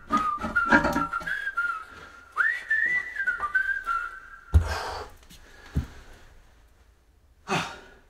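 A whistled tune with sliding notes runs for the first four and a half seconds, over light clinks of metal. Then come two heavy metal clunks as the Land Rover Defender's front differential is worked loose from the axle housing, and a brief rush of noise near the end.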